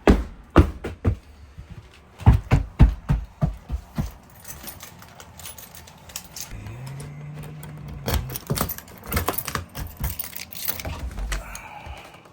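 Snow shovel chopping and scraping into heavy, icy plowed snow: a string of sharp crunching strikes that come in bursts.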